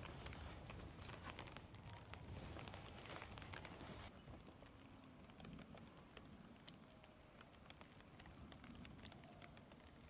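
Faint outdoor nature ambience with scattered light clicks and rustles. From about four seconds in, an insect starts a high-pitched chirp that repeats about twice a second.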